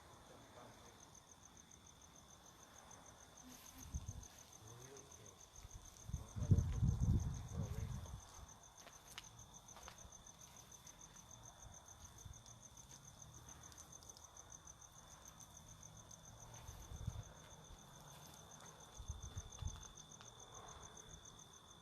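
Crickets chirping: a steady, fast-pulsing high trill with a second, lower steady insect tone under it. Low muffled thumps break in about four seconds in, louder and longer for a couple of seconds soon after, and again twice near the end.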